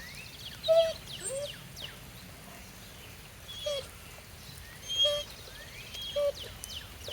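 A dog whining in short, high whimpers, about five of them, spaced a second or more apart, over faint higher chirps. The whining is the dog asking to play.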